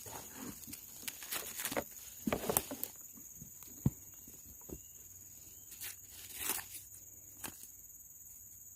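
Crackling and rustling of dry brush and twigs in irregular bursts, busiest in the first three seconds and again about six and a half seconds in, over a steady high-pitched insect drone.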